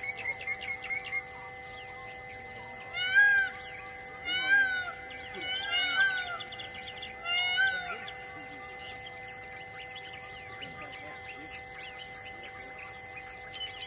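Birds calling in the bush: four loud, arched calls about a second and a half apart in the middle, over a repeating high chirp and a steady high hum.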